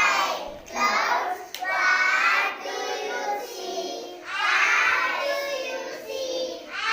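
A group of children singing a rhyme together in short phrases, with brief breaks between lines.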